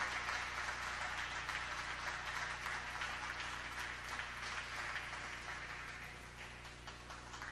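Audience applause, many small claps that thin out and slowly fade.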